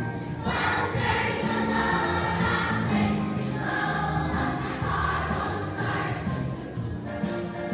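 A group of voices singing in unison with musical accompaniment.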